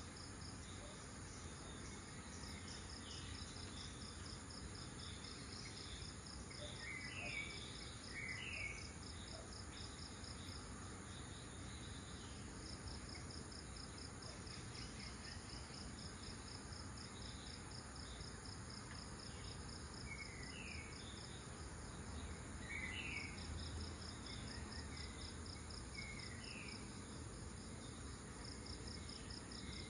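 Dawn insect chorus: a steady, pulsing high-pitched trill, joined by clusters of short rising chirps about a quarter of the way in and again in the second half, over a low steady rumble.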